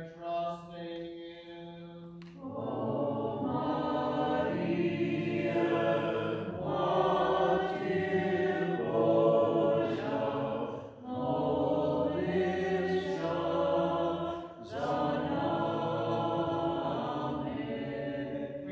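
Byzantine-rite liturgical chant of a moleben to the Mother of God, sung without instruments. A single voice holds a low note, then about two seconds in fuller singing of several voices takes up the chant, with brief breaks around eleven and fifteen seconds in.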